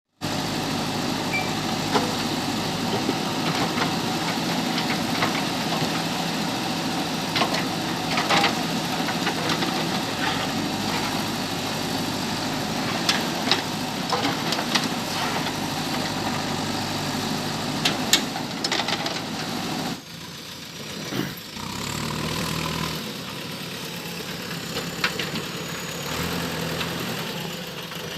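JCB backhoe loader's diesel engine working under load, with frequent sharp knocks and clatters as it digs through stone and mud. About two-thirds of the way through the sound cuts abruptly to a quieter engine note that rises and falls.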